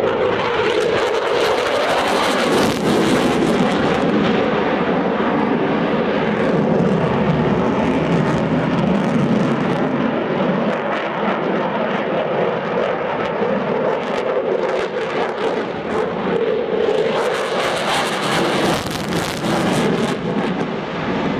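Eurofighter Typhoon's twin EJ200 turbofan engines during a display pass: loud jet noise with a crackle, swelling a couple of seconds in and again near the end.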